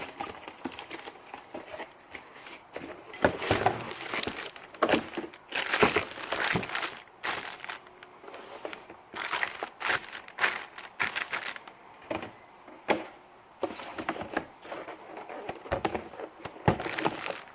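Auto-parts packaging being opened by hand: irregular crinkling, rustling and tearing.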